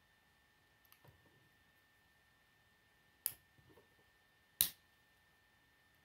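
Plastic K'nex rods and connectors clicking as pieces are snapped together by hand: a few faint clicks about a second in, then two sharp snaps about a second and a half apart, with light rattling of the pieces between them.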